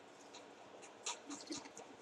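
Faint stylus strokes on a pen tablet: a few short, soft scratches and taps as arrows are drawn, over low room noise.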